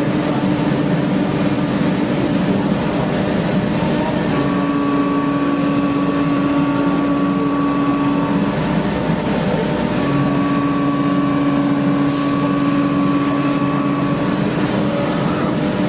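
Factory machinery running steadily, with a steady humming tone that cuts out twice and comes back.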